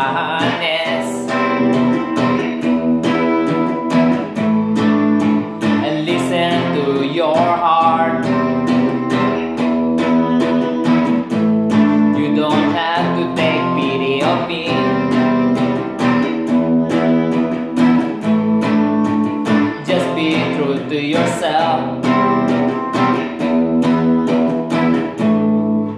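Electric guitar strummed in a steady run of chords, with a man singing along in several phrases; the playing stops abruptly at the end.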